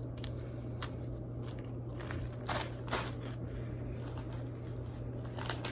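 Biting and chewing a cracker with cheese: a few short, crisp crunches, the two loudest about half a second apart near the middle.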